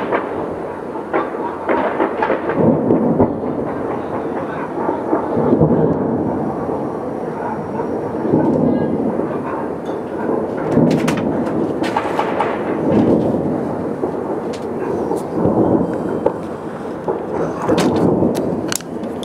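Fireworks display booming in a continuous rolling rumble like thunder, with single sharp cracks now and then in the second half.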